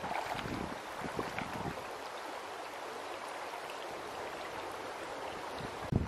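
Shallow river running over rocks: a steady rush of flowing water, with a few low bumps in the first two seconds and a short knock at the very end.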